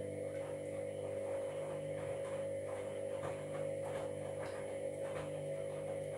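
Washing machine running while it fills at the start of a wash: a steady hum with faint, irregular scraping ticks. The owner takes this grinding for a sign of worn drum bearings.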